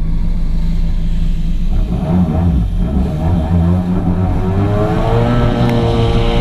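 Yamaha two-stroke personal watercraft engines running at speed over choppy water, their pitch climbing as the throttle opens about four seconds in, with rushing water and spray.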